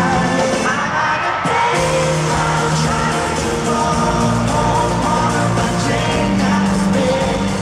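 Live pop-rock band playing, with a male lead vocalist singing over guitar and backing, recorded from the audience.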